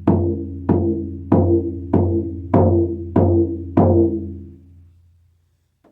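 Handmade 13-inch deer-hide frame drum on a cedar hoop, struck seven times at a steady beat about 0.6 s apart. Each stroke gives a deep tone with a clear ringing pitch above it, and the last one rings out and fades.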